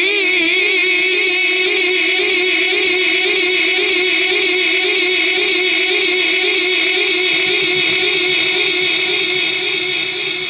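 A qari reciting the Quran (tilawat), holding one long drawn-out note on a single pitch with a steady wavering vibrato, heard through a public-address system. The note eases off slightly near the end.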